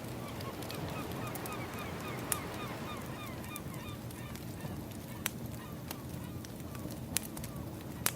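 Ambient soundscape of a crackling wood fire, with a few sharp pops, over a steady rushing background. A bird calls in a rapid run of short falling notes from about a second in until near the end.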